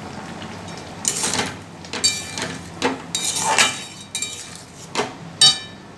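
A metal spatula stirring curry in a metal pan: about six scrapes and clinks against the pan, the later ones ringing briefly. Underneath is the low bubbling of the gravy at the boil.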